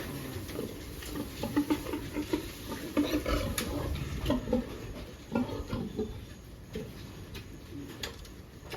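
Sow giving a run of short, low grunts, thickest in the first six seconds and thinning out toward the end, with scattered clicks and rustling in the pen.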